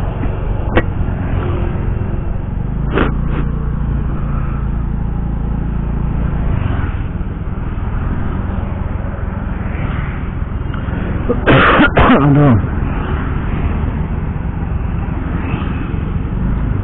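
Honda Vario 125 scooter's single-cylinder engine running steadily while riding, under a steady low road rumble. About two-thirds of the way through, the rider coughs once, loudly and briefly.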